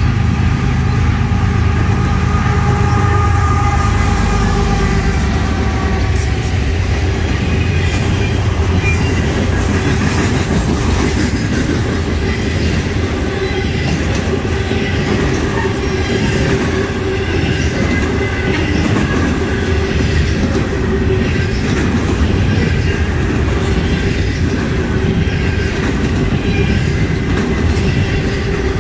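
Freight trains rolling past on adjacent tracks, loaded coal hoppers and double-stack intermodal cars: a steady wheel rumble with rhythmic clicking of wheels over the rail joints and a faint steady squeal. A heavier low rumble in the first several seconds eases off about six seconds in.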